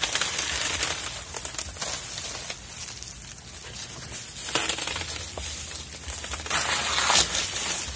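Dry leaves and vegetation rustling and crackling in irregular bursts, loudest at the start and near the end.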